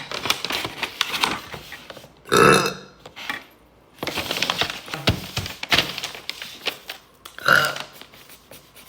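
A young woman burping: one long, loud burp about two seconds in and a shorter one near the end, with scattered clicking and rustling between them.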